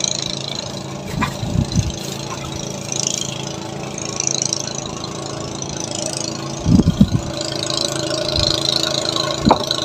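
A small engine running steadily at idle, with a few dull knocks about a second and a half in, around the seven-second mark and near the end.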